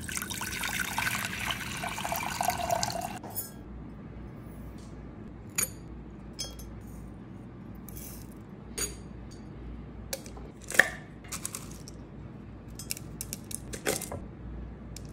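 Water pouring into a stainless steel saucepan for about three seconds. Then sparse light clicks and taps as whole spices, fennel seeds and cloves, are dropped into a glass jug, with the sharpest click a little before eleven seconds in and a run of clicks near the end.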